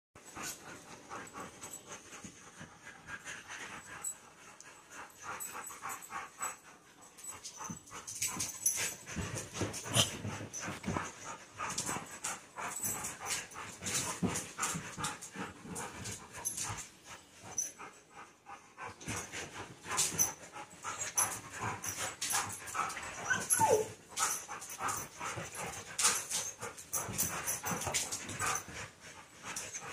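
A golden retriever and Norwegian elkhounds play-fighting: a run of irregular scuffles and dog sounds, busier after the first several seconds, with one short falling cry near the end.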